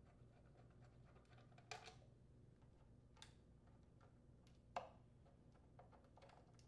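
Near silence with a few faint, sharp clicks of a nutdriver and fingers working the blower housing mounting screws, about one every second and a half.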